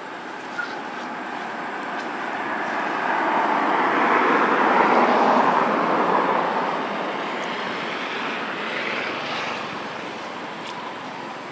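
An aircraft passing over, its engine noise swelling to a peak about five seconds in and then fading away.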